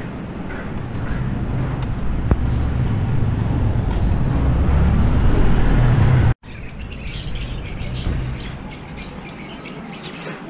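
Low rumble of a vehicle in street traffic, growing louder over about six seconds. It cuts off abruptly and gives way to many small caged birds chirping.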